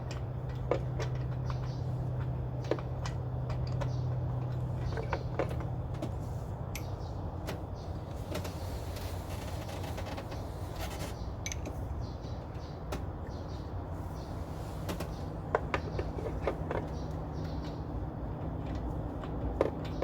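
Scattered light clicks and knocks of a spark plug socket and wrench being handled while fitting a new spark plug, over a steady low hum.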